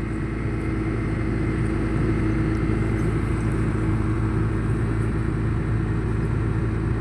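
Diesel engine of a horizontal directional drilling rig running steadily, a constant drone with a steady low hum.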